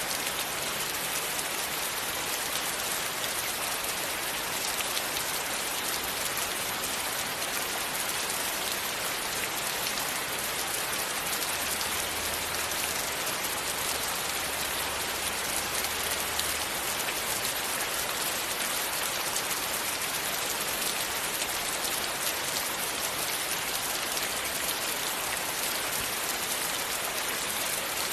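Rain falling steadily: an even wash of many small drops hitting a surface, with no let-up.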